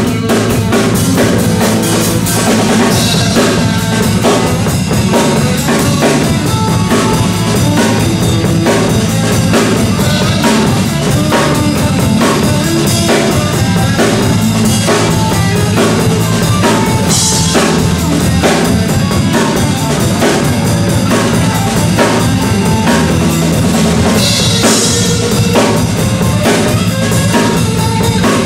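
Live rock band playing loud and without vocals: a drum kit keeps a steady beat on bass drum and snare under two electric guitars, with a few cymbal crashes along the way.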